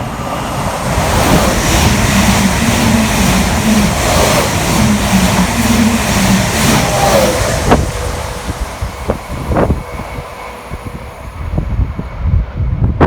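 A train passing at speed: a loud rushing noise that swells in about a second, holds with a low droning tone in the middle, and eases after about eight seconds. A few sharp knocks follow later on.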